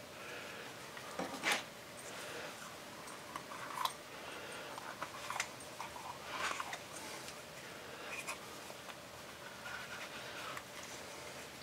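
Small parts handled and fitted by hand: scattered light clicks and rubbing, with a sharper click about a second and a half in.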